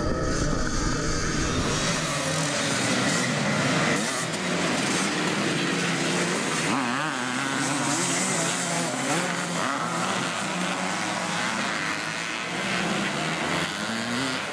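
Vintage motocross dirt bikes racing, their engines revving up and down.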